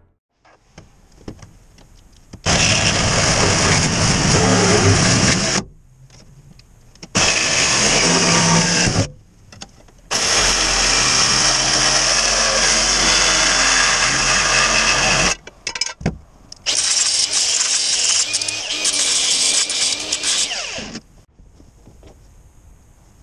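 Cordless power tool run in four bursts of a few seconds each, the longest about five seconds, with short pauses between.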